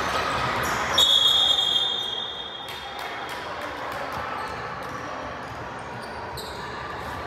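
Basketball bouncing on a hardwood gym floor during play. About a second in, a referee's whistle is blown once, a steady shrill tone lasting about a second and a half.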